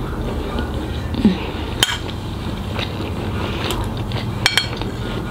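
Metal spoon scraping and clinking against a ceramic plate of curry and rice while eating, with a sharp clink about two seconds in and another near the end, over a low steady hum.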